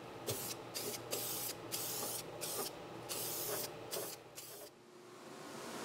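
Primer being sprayed onto bare metal in a quick run of short hissing bursts, about a dozen, stopping a little under five seconds in: spot-priming sanded, rust-damaged spots of an engine bay before paint.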